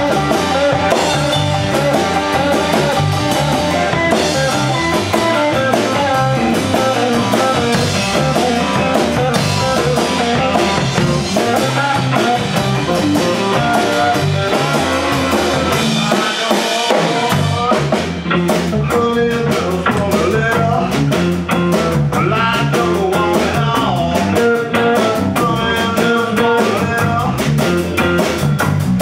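Live blues band playing an instrumental passage: electric guitar over bass guitar and drum kit, with a steady beat.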